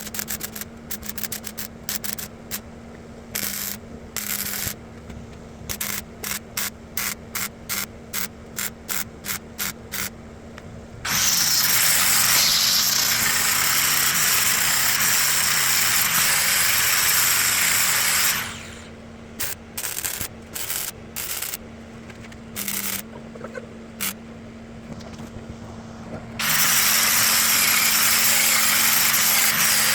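A power tool on car body metal, worked in many quick short bursts, then run steadily for about seven seconds. More short bursts follow, and it runs steadily again near the end.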